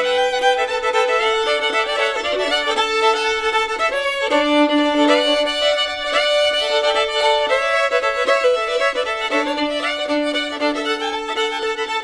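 Fiddle music: a slow melody of long held notes.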